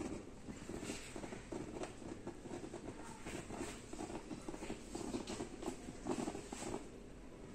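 Water at a rolling boil inside a Midea 0.6 L mini rice cooker (MG-GP06B), bubbling and spluttering under its glass lid as a dense, irregular crackle of small pops.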